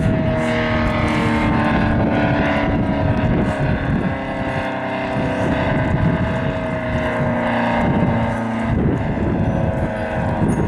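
ACA P-15 outdoor warning siren sounding a steady alert tone, its pitch sagging slightly over the few seconds, with heavy wind buffeting the microphone. The siren head is spinning freely in the wind because its rotator chain has fallen off.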